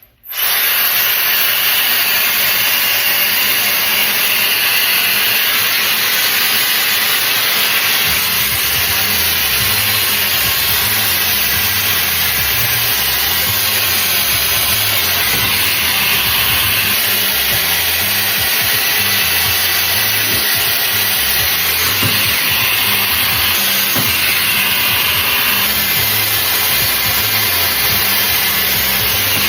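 Shark hair styler's blower switching on and running steadily, a loud, even rush of air with motor noise.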